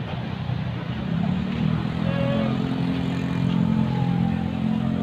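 A motor vehicle's engine running steadily, growing louder about a second in and then holding a low, even drone.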